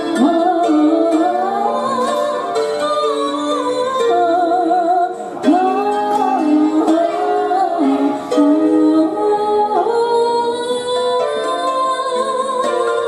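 Female vocals, sung with vibrato into microphones, over a recorded pop backing track with plucked-string accompaniment.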